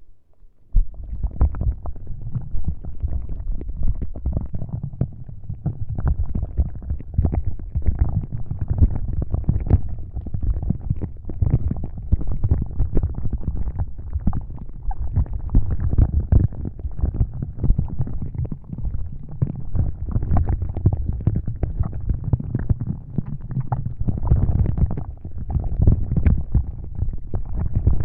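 ASMR prop rubbed and scratched right against the microphone: a dense, rapid crackling and scratching, heavy in the low end, that starts suddenly just under a second in.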